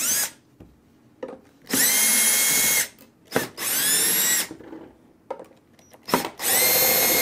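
Cordless drill/driver backing out small Phillips-head screws from a sheet-metal chassis. It runs in three separate spells of about a second each, the motor whine bending in pitch as each spell starts and then holding steady. Light taps and clicks come between the spells.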